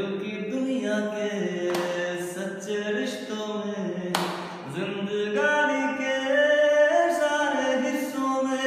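A man singing unaccompanied, holding long notes that slide from pitch to pitch, with quick breaths drawn between phrases.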